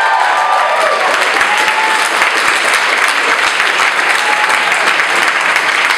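Audience applauding loudly and steadily, with a few cheers and whoops in the first second.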